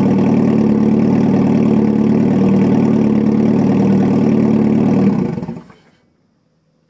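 Modified 1980 VW Scirocco's 16-valve four-cylinder engine idling loudly and unevenly through an open-header exhaust with a short turn-down pipe. It is switched off about five seconds in and dies away within a second.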